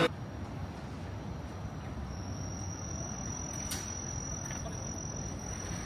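Quiet city street ambience: a low steady rumble, joined about two seconds in by a thin, high, steady whine, with one faint click a little later.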